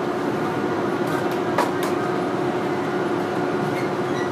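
Inside a Manyosen MLRV1000 low-floor tram standing at a stop: its onboard equipment hums steadily on a constant low tone, with a couple of short clicks about one and a half seconds in.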